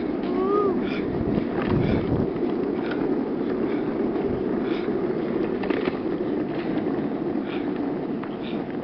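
Office-chair casters rolling fast over street asphalt: a steady rough rumble with scattered clicks and rattles.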